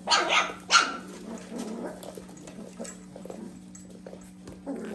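Mini goldendoodle and labradoodle puppies: two short, sharp yips close together in the first second, then quieter stretches, with a whine starting just at the end.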